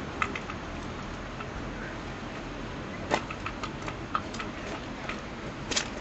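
Strong wind buffeting the microphone as a steady low rush, broken by irregular sharp clicks and taps, the loudest about three seconds in and again near the end.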